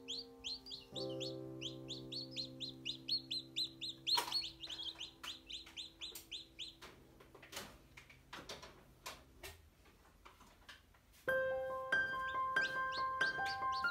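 Newly hatched chicks peeping rapidly, several high falling cheeps a second, over background music of held notes. The peeping stops about halfway, a few sharp clicks follow, and the music comes in louder with a new melody near the end.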